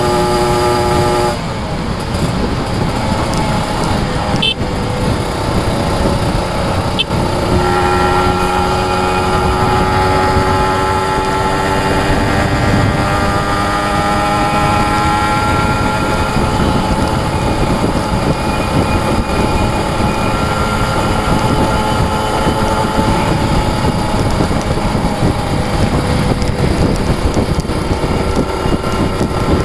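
Kawasaki Ninja 150 RR two-stroke single-cylinder engine running hard under way, with wind and road rumble. The engine note drops away a little over a second in, then from about seven seconds it comes back and slowly rises as the bike accelerates.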